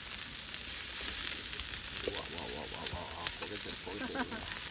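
Meat sizzling in a pan on a camp stove, a steady frying hiss, with an occasional click of tongs in the pan.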